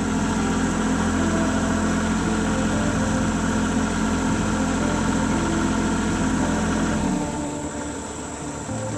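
Kubota compact tractor's diesel engine running steadily, its sound dropping off and turning quieter about seven seconds in.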